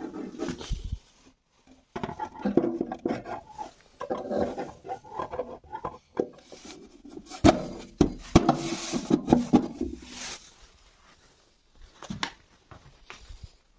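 Hands-on assembly noise from a band saw being put together: a string of irregular knocks, clicks and clatters of parts being handled and fitted, with rubbing and scraping in between. The loudest knocks fall about seven and a half to eight and a half seconds in.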